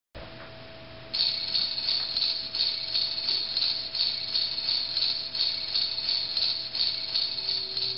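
High-pitched rhythmic chirping, like a cricket's, pulsing about three times a second. It starts about a second in, over a steady low electrical hum.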